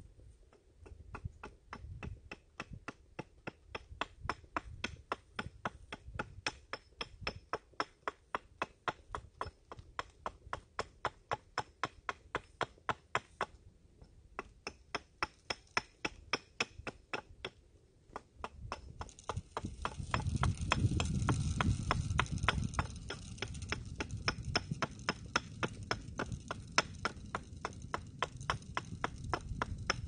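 A hand tool cutting into a wooden stick: a steady run of short, sharp strokes, about four a second, with a couple of brief pauses. About two-thirds through, a low rumbling noise joins the strokes.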